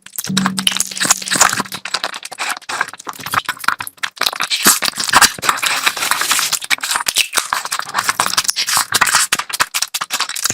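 Close-miked eating: rapid wet chewing and lip-smacking clicks from a mouthful of curry, in a dense irregular crackle.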